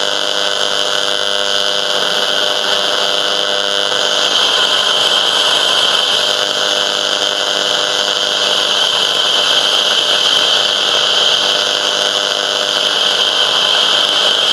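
AM/FM radio static between stations: a steady hiss with several faint held tones underneath.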